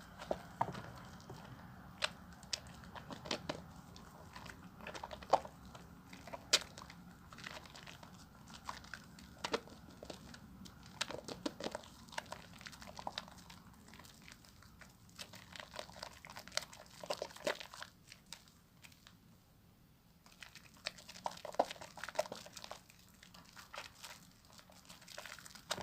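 A creamy bar of soap being lathered with water, giving wet, irregular squishing and crackling clicks, with a brief quieter lull a little past the middle.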